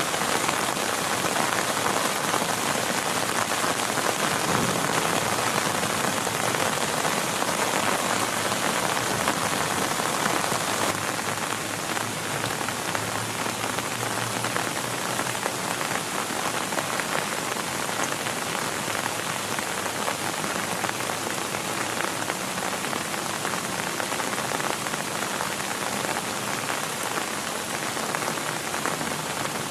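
Heavy rain falling steadily on a tent, easing slightly about a third of the way through.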